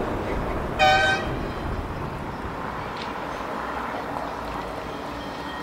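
A short horn toot about a second in, over the steady running noise of a vehicle.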